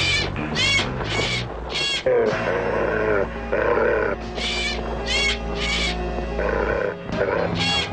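A crow cawing in short repeated calls: four in quick succession, three more about halfway through, and another near the end, over orchestral background music.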